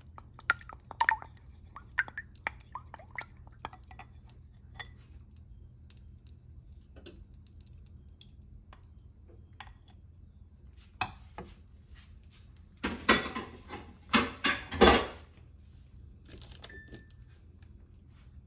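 Wooden spoon clicking against a ceramic bowl as eggs are beaten, a quick run of light taps that thins out after a few seconds. About two-thirds of the way through comes a louder couple of seconds of scraping and clatter as the beaten eggs are poured and scraped from the bowl into the frying pan.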